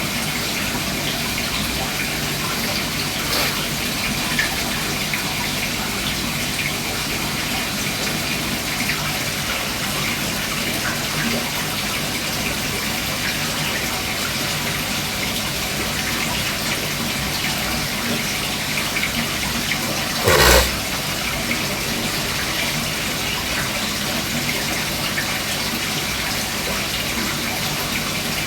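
Aquarium water splashing and bubbling steadily, as from a filter return or air pump running in a cichlid tank. A single short thump about twenty seconds in.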